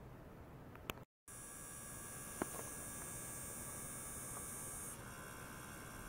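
Faint steady electrical hum and hiss from bench electronics, broken by a brief dead gap about a second in, with two sharp clicks.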